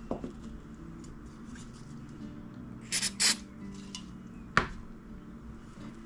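Small handling sounds from gluing tiny wooden model-kayak parts on a workbench: a click, two short hissing bursts about three seconds in, and a sharp tick about a second and a half later, over a low steady hum.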